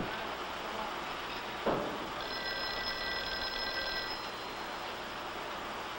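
Office sounds over the hiss of an old film soundtrack: a thump about two seconds in, then a telephone bell ringing steadily for about two seconds.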